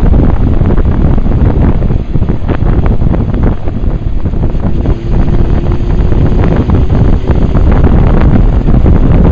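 Wind buffeting the microphone of a camera mounted on a moving motorcycle: a loud, rough, continuous rumble at road speed.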